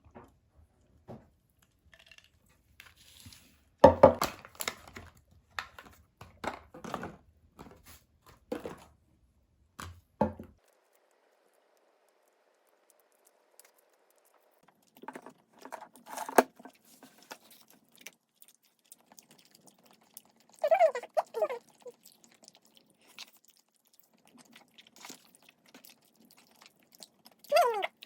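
Eating sounds: chewing and crunching with a run of short knocks and clicks, and two short pitched sounds about two-thirds of the way through and near the end.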